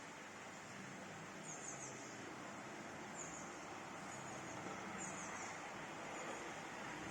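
Steady hiss of rain, with a bird's short high chirps repeating every second or two.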